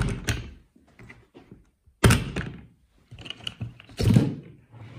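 Latches of a hard plastic Explorer rifle case being snapped open by hand: a few sharp plastic clacks and thunks, the loudest at the start, about two seconds in and about four seconds in.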